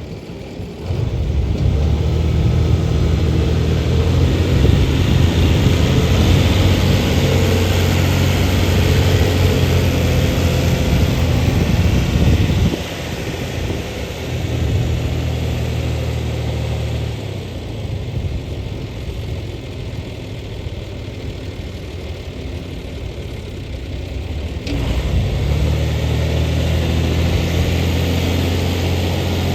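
John Deere 2840 tractor's diesel engine running steadily at a low idle-like hum. It gets quieter about halfway through and rises again near the end.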